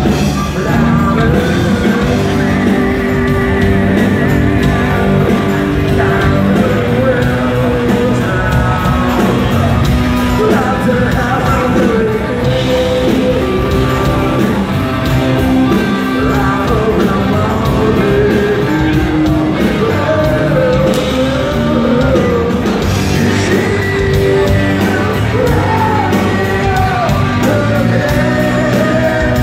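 Live rock band in a bar: a singer on a microphone over loud, continuous amplified band music.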